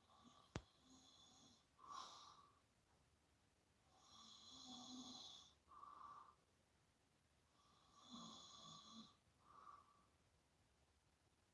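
Soft, gentle snoring from a sleeper: three slow rounds of drawn-in and pushed-out breaths a few seconds apart, with a sharp click about half a second in.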